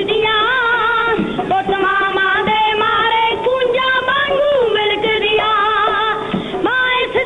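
Music: a melody line that bends and wavers in pitch, over a steady held tone.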